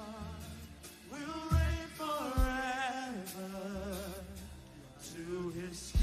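Gospel music with a singer holding long notes with vibrato over sustained keyboard chords and a beat.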